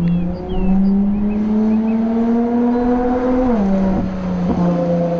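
Race car engine sound, its pitch climbing slowly and then dropping sharply about three and a half seconds in, like a gear change, before running steadily.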